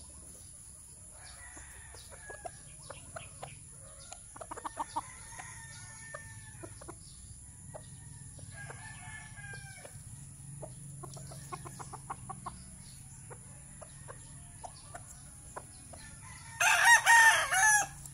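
Rooster clucking at intervals, with short runs of rapid ticking calls, then one loud rooster crow lasting about a second and a half near the end, the loudest sound.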